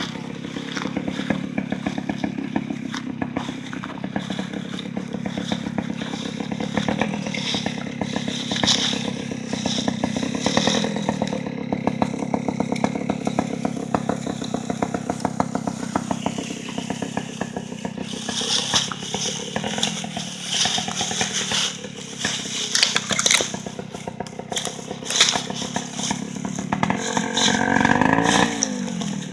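Rokon two-wheel-drive motorbike engine running steadily under load as it climbs a steep slope towing a deer, with the dragged carcass and tyres scraping and crackling through dry leaves.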